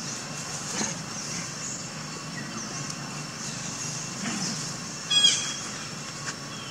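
Steady outdoor background with a low hum and a faint high hiss, broken about five seconds in by one short, loud, high-pitched squeak from the macaque group, most likely an infant.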